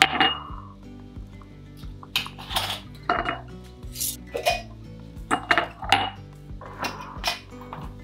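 Kitchen clatter while hot sauce is ladled into glass canning jars: a run of clinks and knocks from the ladle, pot and jars, about a dozen in all, over faint background music.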